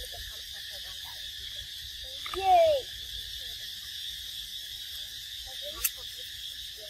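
Steady high buzz of an insect chorus, with one loud call falling in pitch for about half a second roughly two and a half seconds in. There is a sharp click near the end.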